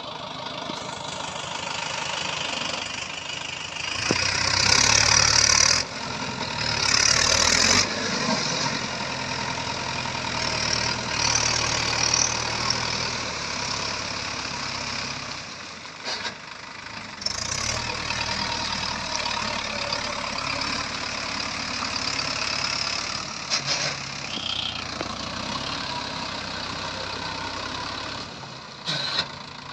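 Mahindra Yuvo Tech+ tractor's diesel engine working under load as it drives a rotavator through flooded paddy mud, steady with a few louder surges.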